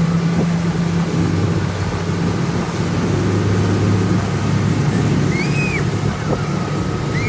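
Motorboat engine running steadily under way while towing, over the rush of the wake and wind on the microphone. Its low hum shifts to a lower note over the first few seconds.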